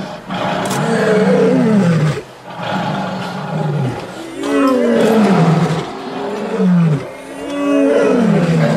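Several male lions roaring together in chorus, their overlapping long calls each falling in pitch, building up from about four seconds in.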